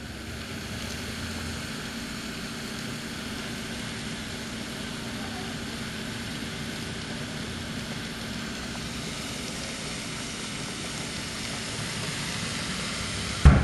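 Steady rushing noise with a faint low hum from a kitchen stovetop in use, with pots on the heat. A single sharp knock near the end.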